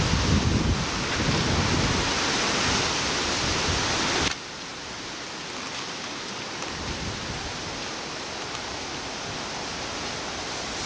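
Steady outdoor hiss with wind buffeting the microphone in a low, uneven rumble. About four seconds in the level drops suddenly to a quieter, even hiss.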